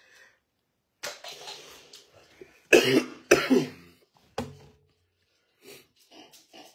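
A man coughing in a series of short bursts, the two loudest about halfway through, with some throat clearing and fainter coughs near the end.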